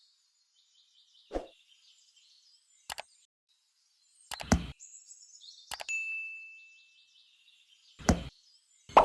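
About five separate knocks and taps, spaced a second or more apart, from small hand work on wood; one is followed by a short ringing ding that fades. Faint bird chirps sound between them.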